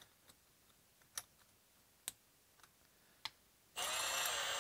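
A few light clicks as a Milwaukee cordless drill fitted with a spade bit is handled, then near the end a short run of the drill's motor, spinning up and back down in under a second.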